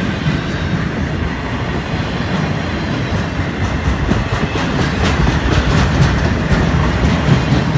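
Florida East Coast freight train's loaded container flatcars rolling past: a steady, heavy rumble of steel wheels on the rails, with light clicks over the rail joints in the second half.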